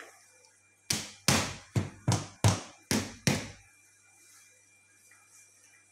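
Seven quick knocks on the base of an upturned aluminium cooking pot, struck by hand through a cloth to loosen the biryani onto the platter beneath. Each knock rings briefly.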